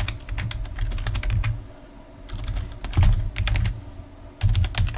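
Typing on a computer keyboard: runs of quick keystrokes entering an email address, with a short pause about two seconds in.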